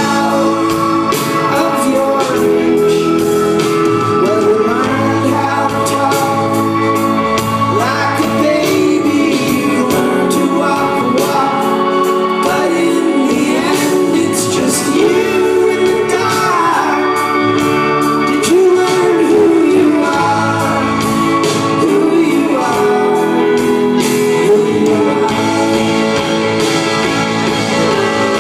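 Live rock band playing a song: guitars, drums and keyboards with sung vocals, heard through the room of a large concert hall.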